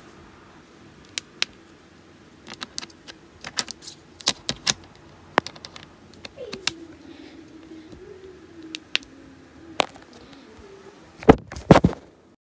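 Irregular sharp clicks and taps from the tablet and phone being handled, with a tight run of the loudest knocks near the end. Under them runs a faint steady low hum that glides down in pitch about six and a half seconds in.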